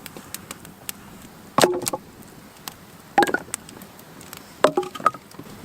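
Three sharp chopping blows about a second and a half apart, each with a short ringing tone.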